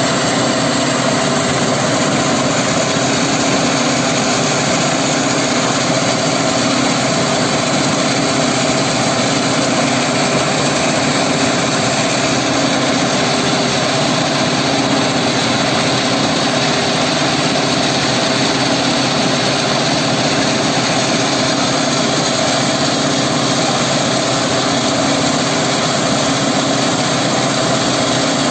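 Stone crusher plant running steadily: the crusher, vibrating screen and conveyor belts make a loud, unbroken machinery noise with a steady hum.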